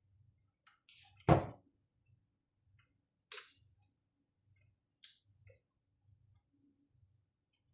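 Small clicks of flex-cable connectors being pushed in and latched on a Mindray T5 patient monitor's circuit boards: one sharp click about a second in, then softer clicks around three and five seconds in.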